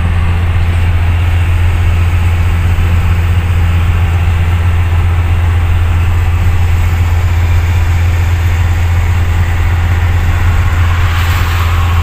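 Inside a moving bus: a steady, loud low drone of engine and road noise. A brief rise in hiss comes near the end.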